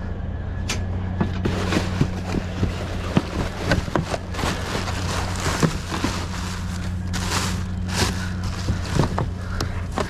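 Trash being rummaged and handled: rustling, with many short clicks and knocks of objects bumping together over a steady low hum.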